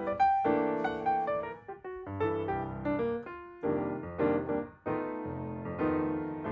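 Background piano music: a gentle melody played over chords, notes struck and left to ring.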